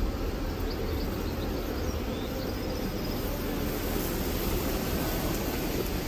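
Steady hum of many honeybees from an opened hive with its frames exposed, from a colony thought to be queenless.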